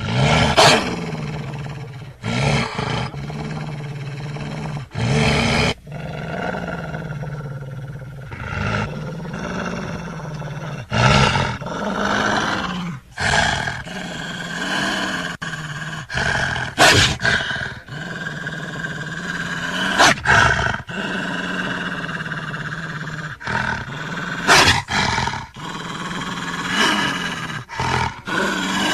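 Bear growling continuously, breaking into louder roars every few seconds, about nine in all.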